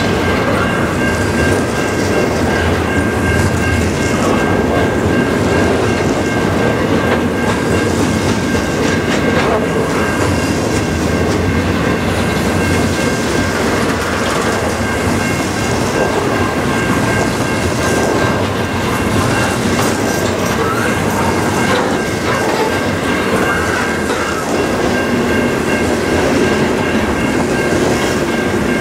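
Double-stack intermodal container cars of a freight train rolling past, steel wheels running on the rails in a steady noise, with steady high-pitched tones over it.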